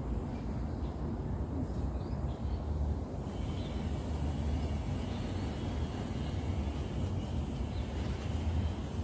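Steady low rumble of outdoor background noise, without clear individual events.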